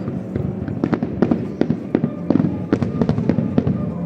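Fireworks display in full swing: a rapid, continuous volley of shell bursts and bangs, several per second.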